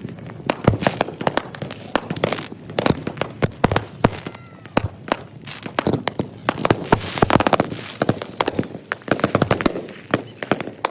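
Consumer fireworks and firecrackers going off in rapid, overlapping bangs and crackles, played back at triple speed.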